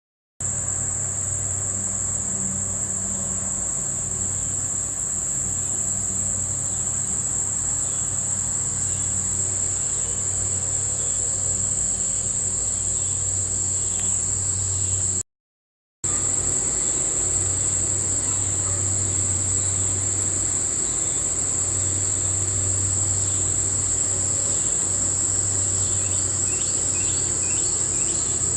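A night insect chorus, crickets or similar, making a continuous high-pitched trill, over a low, uneven droning hum that swells and fades. The sound cuts out briefly about halfway through, then resumes.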